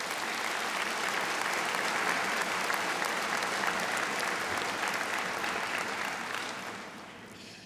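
Large audience applauding: steady clapping that dies away near the end.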